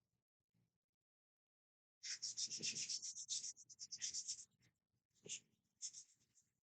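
Sandpaper rubbed back and forth by hand over dried wood filler on a 3D-printed PLA part. After about two seconds of quiet come fast scratchy strokes, then a few shorter, separate strokes.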